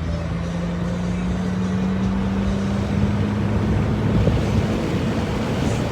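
Fiat 500c driving along, heard from inside the cabin: a steady engine hum over road noise, the engine note rising slowly over the first few seconds.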